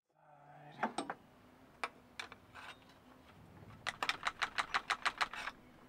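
Sharp metal clicks and taps from hand tools working the timing-belt guide loose on an engine, a few scattered ones first, then a quick run of even clicks, about seven a second, near the end.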